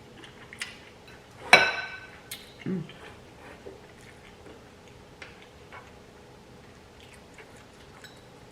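Eating at the table: small clicks and taps of tableware, with one loud ringing clink about a second and a half in.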